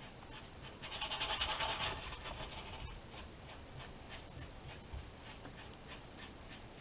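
Paintbrush bristles scrubbing rapidly back and forth over a painted board as acrylic is feathered into the sky, a dry scratchy rustle. It starts about a second in, lasts about a second and a half, then fades to faint strokes.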